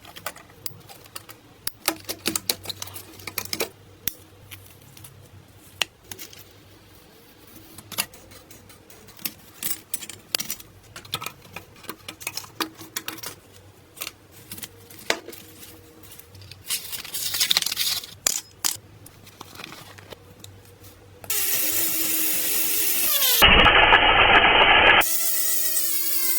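Workshop tool sounds: many scattered sharp clicks and knocks of tools on metal, a short hiss about two thirds of the way in, then a loud steady rushing noise over the last five seconds.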